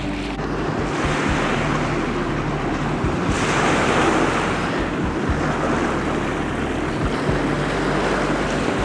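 Steady wind noise buffeting the microphone, with a low hum underneath, swelling a little about three to four seconds in.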